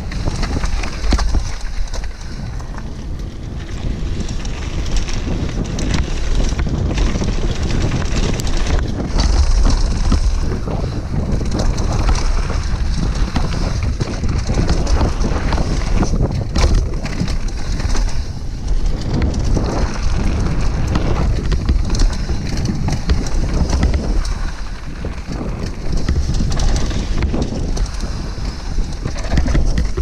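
Wind buffeting a helmet camera's microphone while a downhill mountain bike runs fast over a rough dirt trail, its tyres crunching on gravel and the bike rattling and knocking over bumps.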